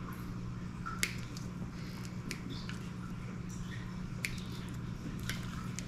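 Hand wire strippers clicking and snipping at a wire's insulation: several short, sharp clicks spread over a few seconds, the clearest about a second in, over a steady low electrical hum.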